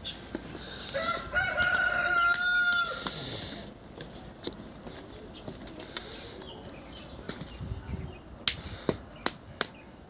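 A rooster crows once, a long pitched call of about two seconds starting about a second in. A few sharp clicks follow near the end.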